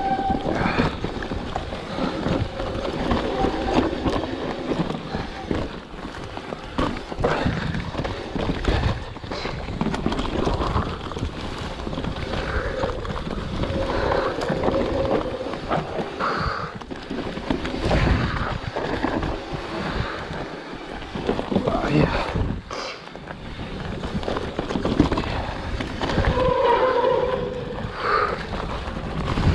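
Mountain bike rolling down a trail: tyres on rough ground with continual rattling and knocks from the bike, and wind on the microphone.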